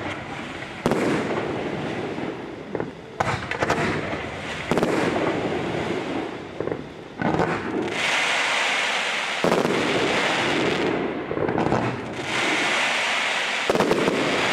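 Fireworks display: a string of aerial shells bursting, each a sudden bang trailing off into a rumble, one every one to three seconds. From about halfway on, a dense hissing crackle from comets and crackling stars runs under further bangs.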